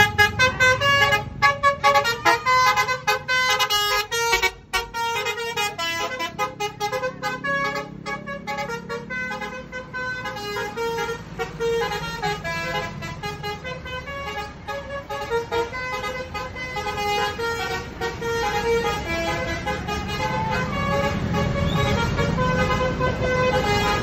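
A Tunggal Jaya coach's Basuri telolet horn playing a quick tune of short pitched toots that changes note every fraction of a second. The bus's engine is heard running under it more strongly near the end as the coach pulls away.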